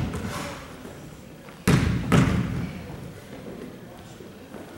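Basketball bouncing on a hardwood gym floor: one thud dying away at the start, then two more about half a second apart near the middle, each echoing in the hall.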